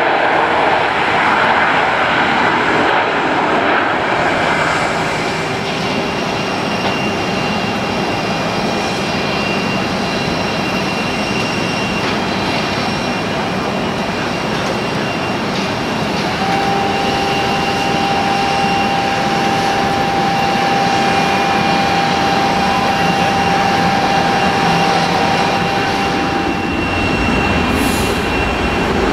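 Airbus A340-300's four CFM56 turbofan engines as the airliner rolls out and slows after landing. A louder jet rush in the first few seconds dies down to a steady engine hum with a thin high whine, and a clearer steady whine joins about halfway through as it taxis.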